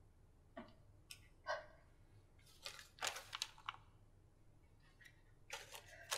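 Scattered short sounds of a woman crying, with breathy gasps, mixed with rustling as she handles a slip of paper. They come in small clusters, the densest in the middle and another near the end.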